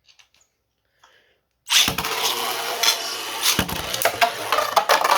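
Two 3D-printed Beyblade tops launched into a plastic stadium: after a few faint clicks, a sudden loud start about a second and a half in, then a steady spinning scrape with sharp clacks as the tops hit each other, the hardest two near the start and in the middle.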